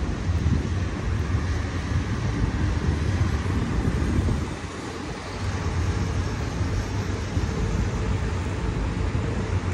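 Rainy city street ambience: a steady hiss of rain and traffic on wet roads over a low rumble, which dips briefly about five seconds in.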